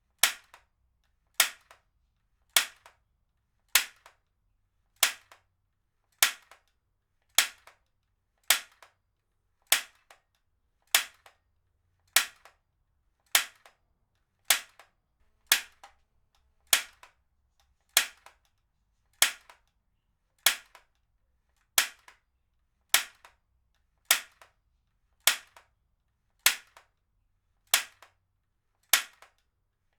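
Heavy-duty stapler fired again and again, each shot a sharp snap with a brief ring-off, at a steady pace of about one every 1.2 seconds.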